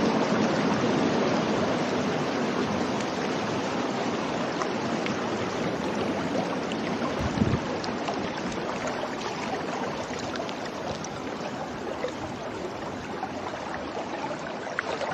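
Muddy floodwater rushing fast down a wadi channel: a steady rushing noise that slowly grows fainter, with one brief thump about halfway through.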